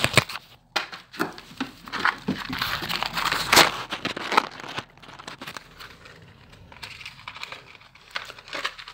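Crinkling and crackling of a small old pouch being handled and opened, with short knocks and scrapes of handling. The rustling comes in irregular bursts, loudest about three and a half seconds in and quieter in the second half.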